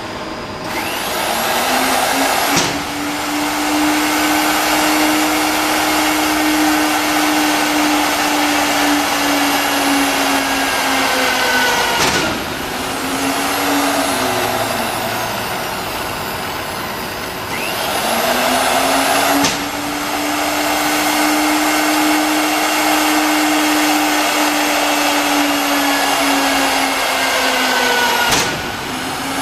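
Drilling-head spindle motor on a CNC plasma table drilling holes in steel plate: it spins up with a rising whine, runs at a steady pitch over the hiss of the cut, then winds down, twice over, with a sharp click at each start and stop.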